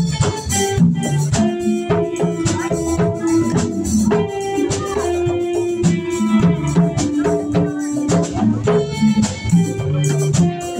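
Live band playing an upbeat instrumental groove: electric guitar over a drum kit and hand-played congas, with a steady percussive beat.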